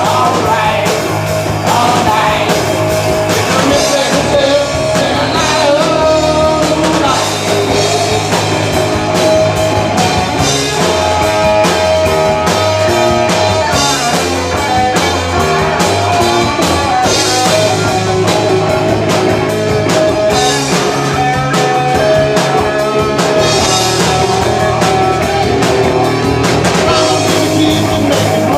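A live rock band playing a song, with a singer over guitar and drums.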